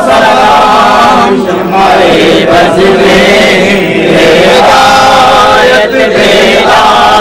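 Group of men chanting an Urdu salam, a devotional salutation to the Prophet, together in a slow, sustained melody.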